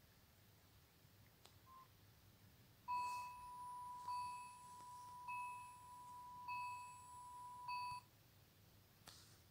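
Faint electronic phone tone through a small phone speaker: a short beep, then a steady beeping tone about five seconds long, pulsing about once a second before it cuts off.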